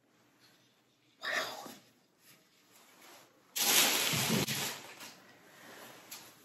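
A person's breath sounds: a short breath about a second in, then a louder, longer breathy rush a couple of seconds later that fades away.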